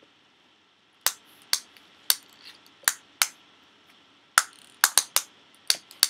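About a dozen sharp, irregularly spaced plastic clicks from a wind-up Toothless dragon toy being wound: the clicking that comes once the spring is fully wound, which sounds broken but isn't.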